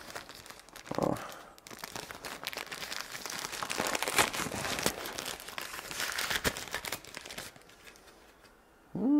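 Thin plastic packaging bag crinkling and rustling in irregular bursts as it is handled and pulled open, quieter for the last second or two; a brief voiced "hm" right at the end.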